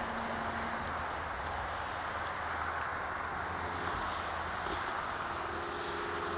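Steady wash of highway traffic noise, with a faint engine tone coming in about five seconds in.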